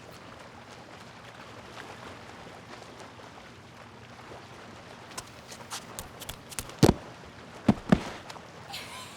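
Faint background hiss, then a scattering of light clicks and knocks from about five seconds in, with two louder, duller thumps about seven and eight seconds in.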